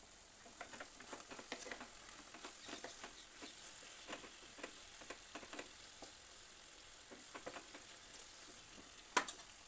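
Chicken pieces sizzling in hot oil in a non-stick frying pan, with faint crackles and a wooden spatula stirring them. Two sharp knocks come close together near the end.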